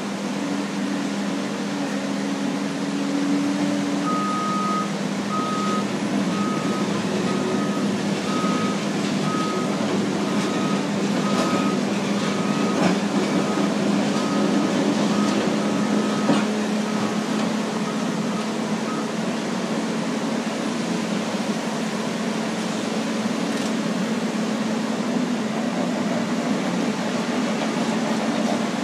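Heavy earthmoving machines spreading sand, their diesel engines running with a steady hum. A reversing alarm beeps about once a second from about four seconds in, fading out some fifteen seconds later as a machine backs up.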